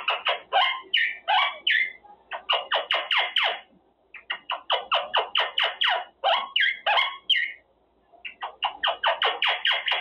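Quaker parrot (monk parakeet) chattering in fast runs of short, high, squawky calls, several a second, with brief breaks between the runs.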